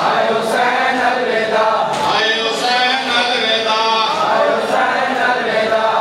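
Men chanting a noha lament in chorus, led by a man singing through a microphone, with a few sharp slaps of matam chest-beating.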